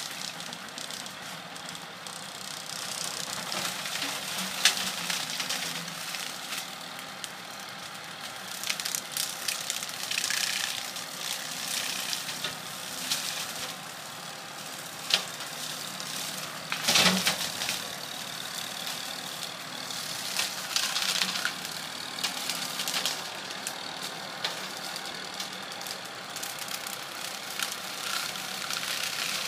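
Tractor engine running steadily as the machine drives over brush and crushes it, with irregular cracks and snaps of breaking branches; the loudest crack comes a little past halfway.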